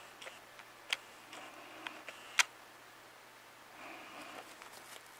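Handling noise from a hand-held camera: a few scattered light clicks, the sharpest about two and a half seconds in, with faint rustling between them.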